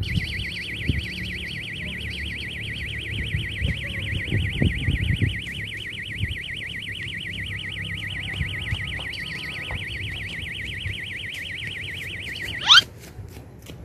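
Electronic fishing bite alarm sounding a continuous warbling tone that wobbles in pitch several times a second, signalling a fish taking the bait. Near the end it cuts off with a brief loud rising chirp, followed by a few clicks.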